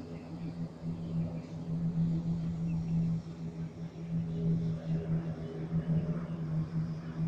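A formation of small propeller aircraft flying past in the distance: a steady engine and propeller drone.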